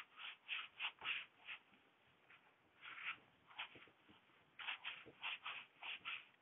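Whiteboard duster wiping across a whiteboard in quick back-and-forth strokes, about three or four a second, in three runs with short pauses between. It is faint, heard over a video call's narrow audio.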